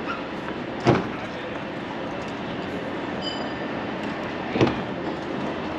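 Steady city street noise, with two sharp knocks about three and a half seconds apart and a short high ring between them.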